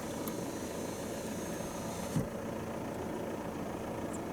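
Steady engine and cabin hum of a car heard from inside, with a brief soft knock about two seconds in.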